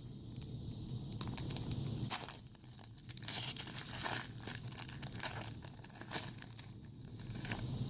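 Foil wrapper of a 2014 Contenders football card pack being torn open and crinkled, a run of short irregular crackles and rustles.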